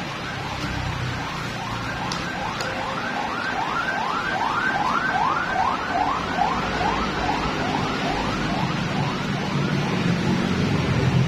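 An electronic siren whooping in quick repeated rising sweeps, a little over two a second, swelling louder toward the middle and then fading away.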